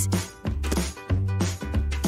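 Background music with held bass notes and a beat about every half second.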